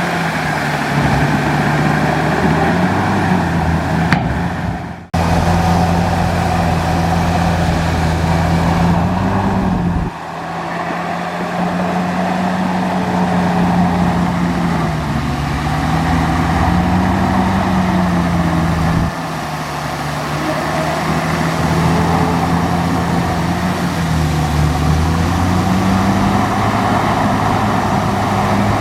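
Large bulldozer's diesel engine running hard while pushing dirt, its pitch rising and sagging every few seconds as the load comes and goes. The sound breaks off abruptly three times.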